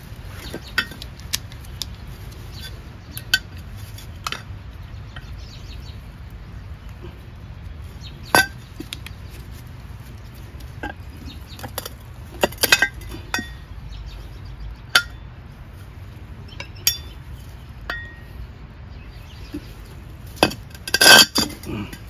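Small tools and parts being handled while old ATV tire valve stems are removed: scattered short clinks and clicks, with a louder run of clinks near the end, over a steady low rumble.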